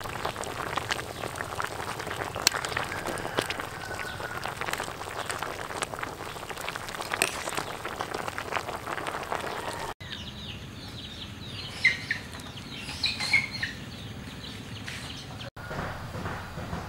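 Stew bubbling and crackling in a pot as a ladle stirs it, a dense run of small clicks. About ten seconds in it gives way to birds chirping briefly, several short high calls.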